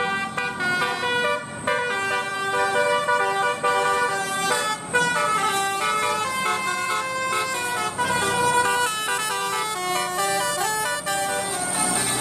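A bus 'telolet' musical horn playing a tune: a run of horn notes that step from pitch to pitch every fraction of a second, with a few short breaks.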